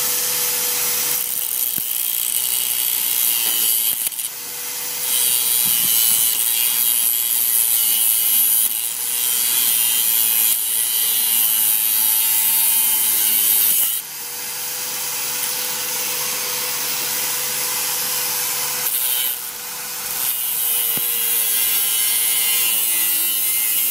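Angle grinder's cutting disc grinding through steel wire rigging cable over a steady motor whine. The harsh grinding rises and falls as the disc bites and eases, dropping briefly about four, fourteen and nineteen seconds in.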